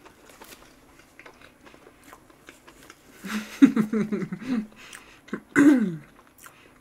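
A person chewing soft chocolate cream cake, with faint small mouth clicks, then wordless closed-mouth voice sounds: a wavering hum a little past the middle and a short falling 'hmm' near the end.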